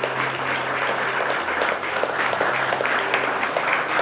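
A small group of people applauding steadily, a dense patter of many hands clapping.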